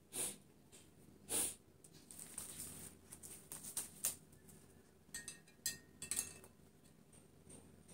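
Hands handling a flower and a vase: short rustles and light knocks, the two loudest just after the start and about a second and a half in, and a quicker cluster of small clicks and rustles around five to six seconds in.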